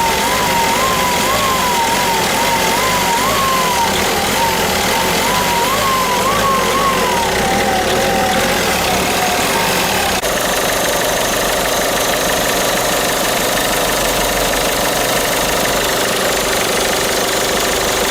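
Citroën Picasso 1.6 HDi 110 turbodiesel engine running at idle, heard from inside the cabin, with the clacking that the owner hears only in the cabin. A high wavering tone rises and falls over and over for about the first half, then stops.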